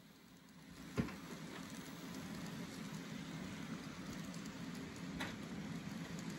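N scale passenger cars rolling along the track, a steady rolling rumble that grows louder in the first second. A sharp click about a second in and another about five seconds in.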